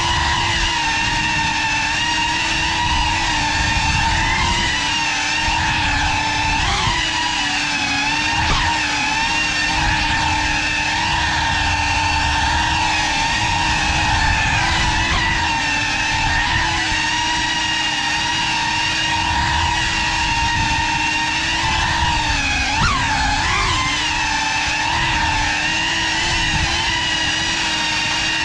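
Motors and ducted propellers of a GEPRC Cinelog35 cinewhoop FPV quadcopter buzzing as it cruises, heard from the onboard camera, with a steady pitched whine that flicks up and down briefly a few times as the throttle changes, over a low rumble of prop wash.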